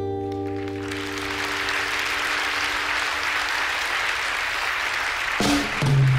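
An audience applauds steadily as the last acoustic guitar chord of the song rings out and fades within the first second. Near the end, new music starts up over the applause.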